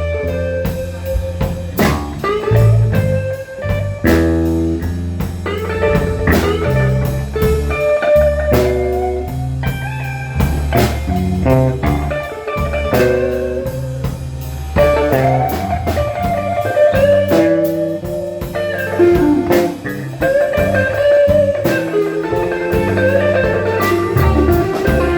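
Blues music: guitar over bass and a drum kit keeping a steady beat.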